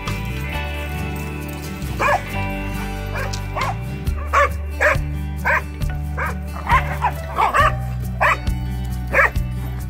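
Slovakian Kopov hounds barking while playing and chasing each other: a string of short, sharp barks starting about two seconds in, coming irregularly, sometimes in quick pairs. Background music plays steadily underneath.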